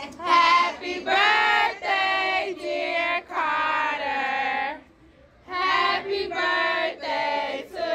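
Children singing, with long held notes and a short break a little past the middle.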